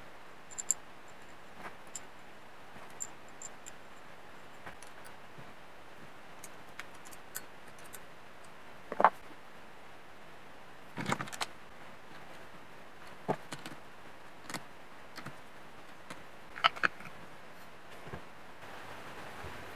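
Small metal engine parts clicking and clinking as they are handled and fitted by hand on a workbench: scattered light clicks, with a few sharper clinks in the middle and a quick pair near the end, over a faint steady hiss.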